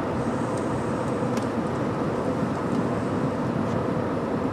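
Steady road and engine noise from inside a moving car's cabin.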